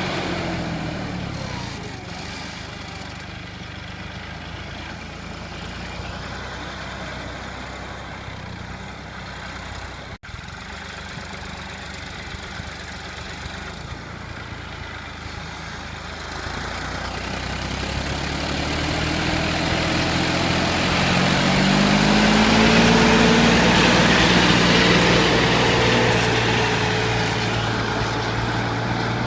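Tractor diesel engine working under ploughing load. The sound fades and drops in pitch in the first couple of seconds, stays quieter for a while, then grows louder with a rising engine note from a little past halfway, is loudest about three-quarters of the way through, and eases off again near the end.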